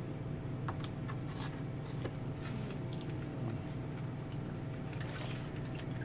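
A steady low machine hum with a faint steady tone above it, under a few light crinkles and clicks of a plastic zip-top bag of brine as half chickens are lifted out onto a metal sheet pan.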